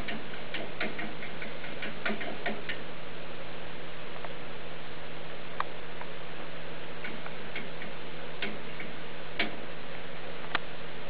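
Habitrail mini hanging plastic exercise wheel clicking as wild deer mice run in it: a quick run of light clicks in the first few seconds, then scattered single clicks. Under it a steady hum and hiss.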